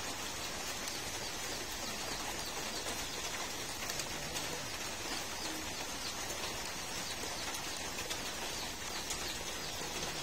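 Steady rain falling, with birds chirping and a dove cooing.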